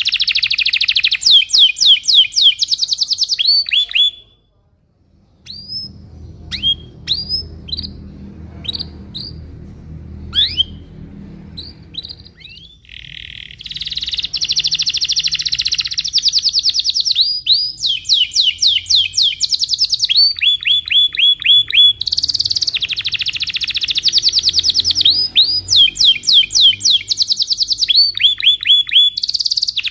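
Domestic canary singing a rolling song of rapid trills and fast repeated down-slurred notes. About four seconds in it stops briefly, gives scattered single chirps for several seconds over a faint low rumble, then goes back into continuous rolling trills.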